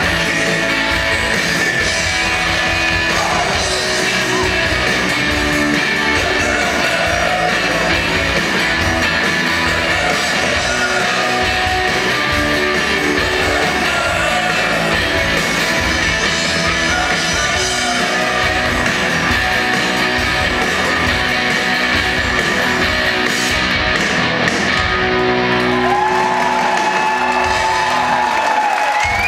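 Live rock band playing with electric guitars, drums and lead vocals, heard from the audience in a large, reverberant hall. Long notes are held near the end as the song closes.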